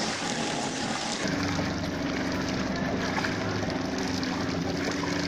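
Steady wash of water and traffic noise on a flooded road; about a second in, the steady low hum of a running motor-vehicle engine sets in and carries on.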